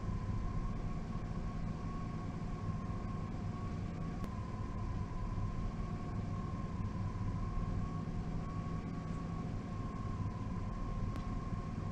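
Vehicle engine idling steadily, heard from inside the cab as a low hum, with a thin steady whine above it.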